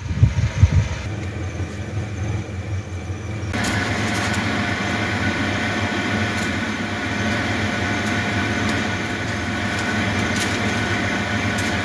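Ambulance van's engine running, with road noise and a steady hum. There are a few heavy low thumps in the first second, and about three and a half seconds in the sound changes to a fuller, steady noise.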